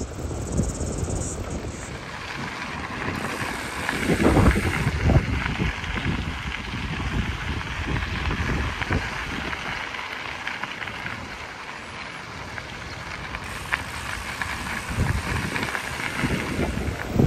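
Wind rushing over the microphone while riding a mountain bike along a trail, with a steady low rumble from the ride and a few heavier knocks from bumps.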